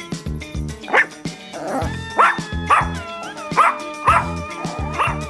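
A dog barking about six times in quick succession over background music with a steady beat. The barks start about a second in and are the loudest sounds.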